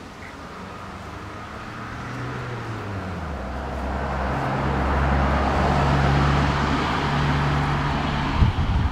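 A motor engine humming steadily and getting louder over several seconds. Low buffeting like wind on the microphone comes in near the end.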